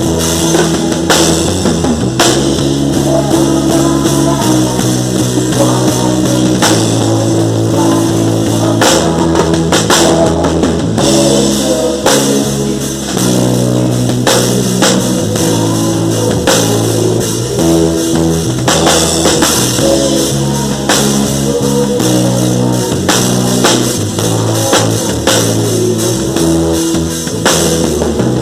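Worship band playing an instrumental passage in a rock style: drum kit, bass and electric guitar, with the chords changing every second or two.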